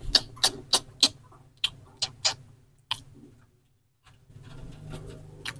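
A quick run of sharp clicks or taps, about three a second, thinning out and stopping about three seconds in; near the end only a faint low hum remains.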